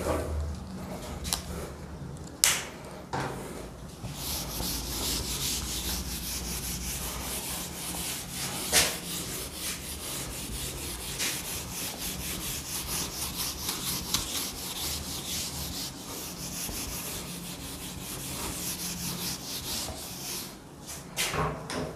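A handheld duster scrubbed rapidly back and forth over a whiteboard, wiping off marker writing. It is a long run of quick, even rubbing strokes that starts a few seconds in, with a few sharp knocks among them.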